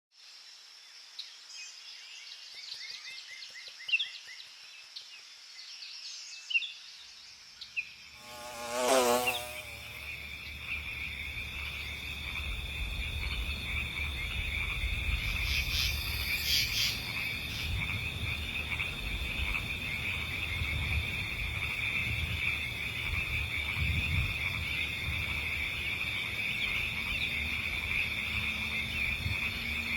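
Meadow ambience sound effect: short bird-like chirps over the first several seconds, a brief loud sweeping sound about nine seconds in, then a steady high insect buzz over a low rumble.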